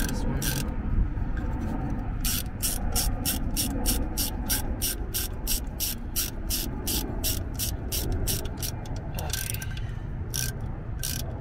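Ratchet wrench clicking in a fast, even run of about four clicks a second as a bolt is tightened, then a few slower clicks near the end.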